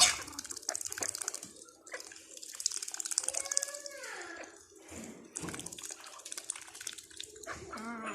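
Water splashing and sloshing in irregular spurts, typical of ducks bathing and dabbling, with a sharp splash at the start. A brief falling call is heard about three and a half seconds in, and another near the end.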